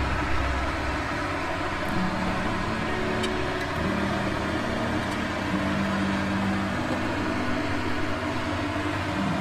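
Wood-Mizer LT15 portable sawmill's engine running steadily at idle between cuts, with a few faint knocks.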